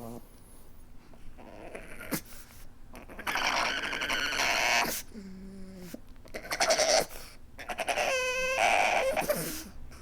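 Pug whimpering and snuffling: noisy snorting breaths, broken by a short low whine about five seconds in and a higher, brief whimper about eight seconds in.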